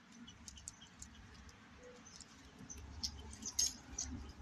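Coca-Cola foaming up out of the bottle's neck after Mentos are dropped in, heard as a fizzing crackle of small, sharp pops that builds about three seconds in. Wind buffets the microphone with a low rumble.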